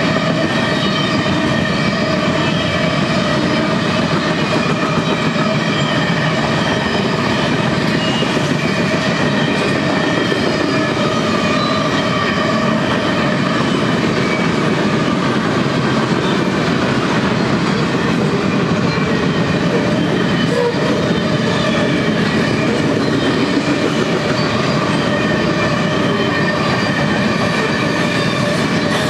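Freight cars of a mixed freight train rolling steadily past on the rails, with wheels clicking over the track and steady ringing tones over the rumble.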